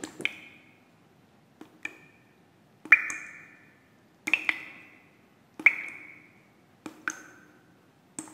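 A series of ringing pings, about one every second and a quarter, several struck as quick double taps, each dying away over about half a second.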